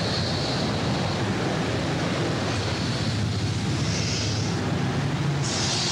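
Steady rushing background noise with no sharp impact, like wind on the microphone or hiss on an old recording; the hammer blow is not heard.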